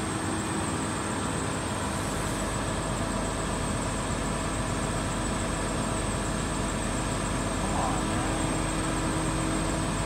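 A crane's engine running steadily, a continuous engine drone whose low rumble grows stronger about two seconds in.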